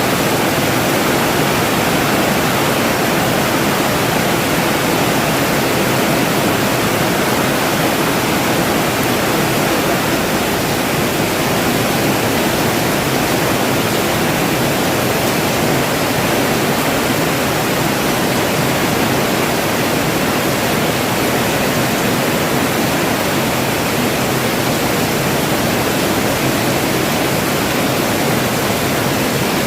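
Steady heavy rain falling, an even hiss without breaks or separate drops standing out.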